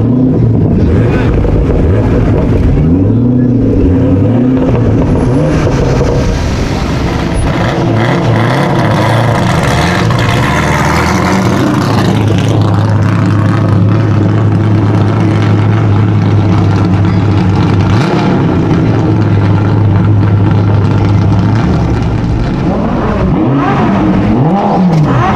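Sports car engines revving, their pitch rising and falling, with a steady low engine drone through the middle and more revving near the end.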